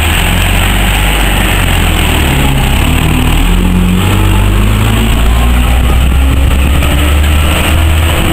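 Diesel engine of a vintage single-deck coach pulling away and driving off, a loud, deep running note whose pitch steps up and down a few times as it gathers speed.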